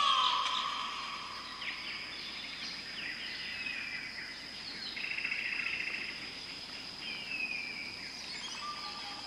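Tropical rainforest ambience: a steady high-pitched insect drone with bird calls over it, including a long falling whistle at the start, short falling chirps, and a buzzy trill about five seconds in.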